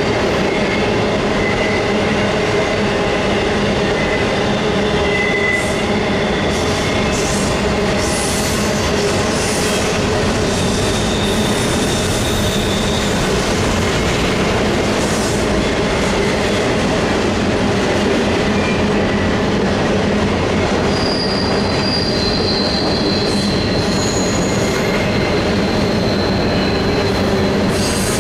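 BNSF intermodal train's double-stack container well cars rolling past steadily, a continuous rumble of steel wheels on rail, with thin high-pitched squeals from the wheels coming and going now and then.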